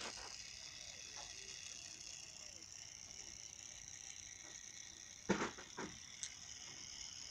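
Tiny solar-driven motor of a kit-built toy boat spinning its air propeller, a steady high whirring whine. A sharp knock a little past five seconds in, with two lighter clicks just after.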